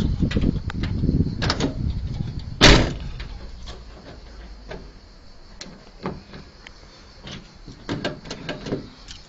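A car door shut with a single sharp slam a little under three seconds in, after low rumbling handling noise, followed by a few faint scattered clicks.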